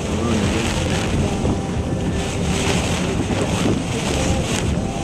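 Storm wind from Hurricane Irene buffeting the microphone, with waves breaking against a ferry's bow over a heavy, steady low rumble.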